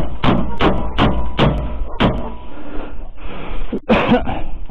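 Hammer blows knocking a chimney cap down onto a brick chimney to seat it: about six sharp strikes in the first two seconds, then a scraping shuffle near the end, with wind rumbling on the microphone.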